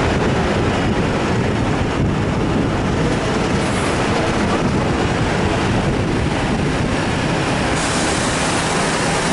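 Airport apron shuttle bus under way across the tarmac: a steady, loud rumble of engine and road noise.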